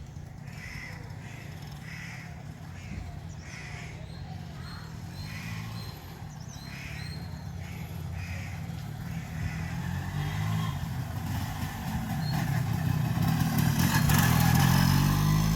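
Enfield Fury's two-stroke motorcycle engine running steadily. It grows louder over the last few seconds and eases off at the very end.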